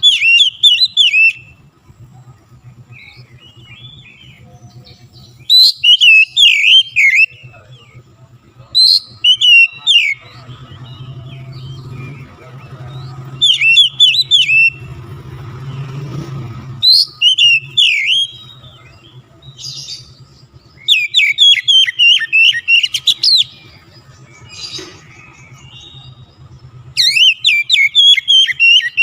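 Oriental magpie-robin (kacer) singing loud, rapid phrases of whistled and chattering notes. Each phrase lasts a second or two, with pauses of a few seconds between them, over a faint low hum.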